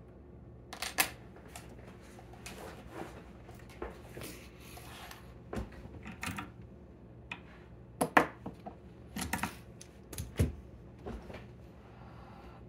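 Irregular metallic clicks and knocks as a lock cylinder is handled, loosened from a small bench vise and taken out of it, with a few sharper knocks among them.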